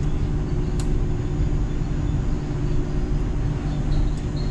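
Steady running rumble and hum of the SkyTrain suspended monorail, heard from inside the car, with one light click about a second in.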